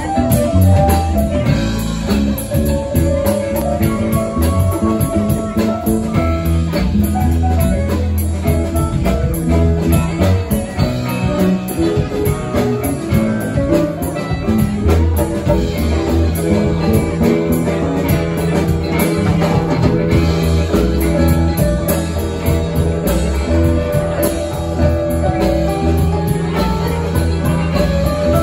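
Live amplified band playing an instrumental jam: electric guitar, mandolin and electric bass over a drum kit keeping a steady beat, with a heavy bass line.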